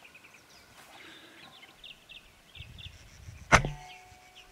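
A single sharp shot from a suppressed LCS Air Arms SK-19 PCP air rifle, about three and a half seconds in, with a brief ring after it.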